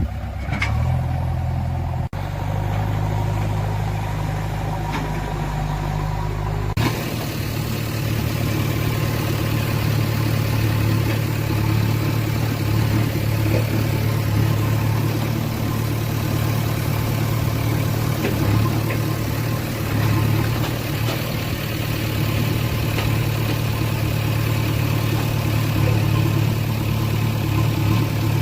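Diesel engine of a JCB backhoe loader running steadily at work. About seven seconds in the sound changes abruptly and becomes noisier and brighter.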